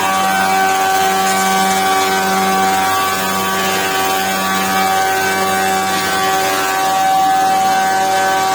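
Weinig Profimat 6 four-sided planer running with its four cutter spindles spinning: a loud, steady whine of several pitches held together, with a lower hum that pulses about once a second.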